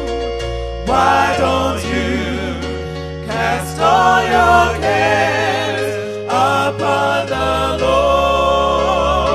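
Gospel music: voices singing long, wavering notes with vibrato over held bass notes that change every second or two.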